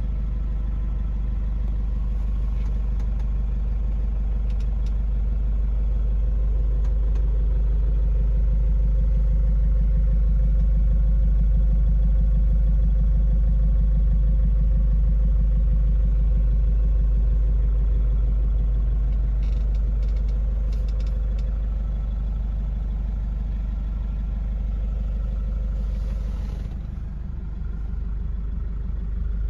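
Nissan Patrol Y61's 3.0-litre four-cylinder turbodiesel running steadily at low revs, heard from inside the cabin. Its low drone swells a little midway and eases off again, with a few light clicks about twenty seconds in.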